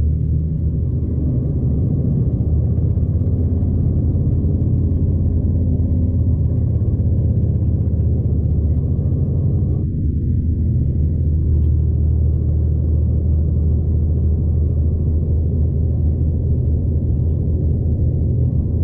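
Steady low rumble of a V/Line diesel passenger train running along the track, heard from inside the carriage.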